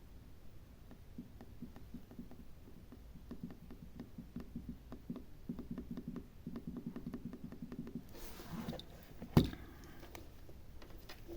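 A small hand tool scratching and picking at a phone's shorted power button on the board: a run of faint ticks and quick scraping strokes, a short rasp, then one sharp click about nine seconds in.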